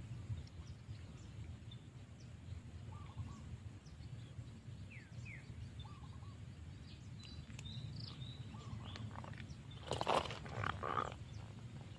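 Outdoor ambience: a steady low rumble with faint, scattered bird chirps, and a brief louder noise about ten seconds in.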